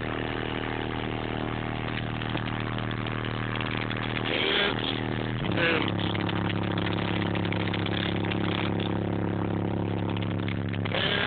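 Deep bass from a rap track played loud through two Digital Designs DD9512 12-inch subwoofers in a car trunk: long held bass notes that shift to a new note about five and a half seconds in. Short rattles come through about four and a half seconds in and again near the end.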